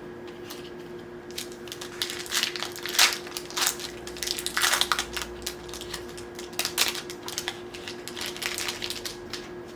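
A Magic: The Gathering collector booster pack's foil wrapper being crinkled and torn open by hand, an irregular crackling that comes and goes for most of the stretch.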